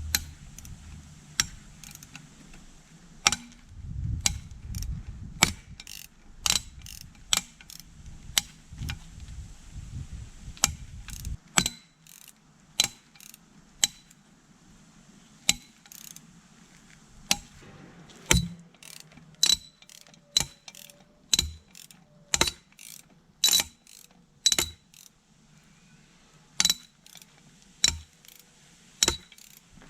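Wera Zyklop speed ratchet clicking in short sharp bursts, roughly one or two a second, as its 72-tooth mechanism is worked back and forth. A low rumbling noise runs underneath for several seconds in the first half.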